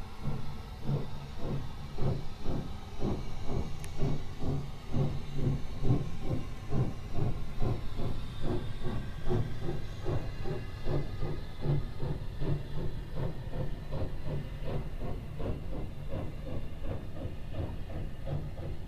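USATC S160 2-8-0 steam locomotive pulling its train away from the station, working hard, its chimney exhaust chuffing in a steady, even rhythm over the hiss of steam.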